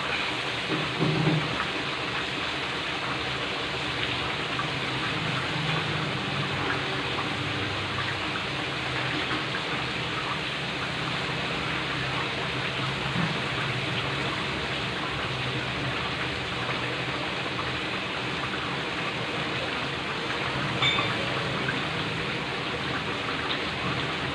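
Chicken deep-frying in hot oil in a wok: a steady sizzle and bubbling.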